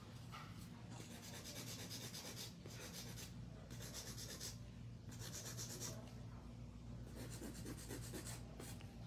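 Hand nail file rubbing across acrylic nails, in several short bursts of quick back-and-forth strokes.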